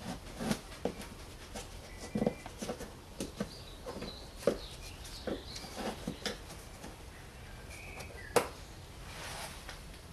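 Scattered light clicks and taps of plastic trim clips and tools being handled at a car's wheel arch, with one sharper click about eight seconds in.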